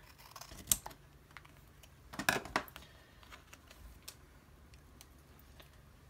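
Scissors cutting paper in a few sharp snips, the loudest about a second in and around two and a half seconds in, then a few faint ticks.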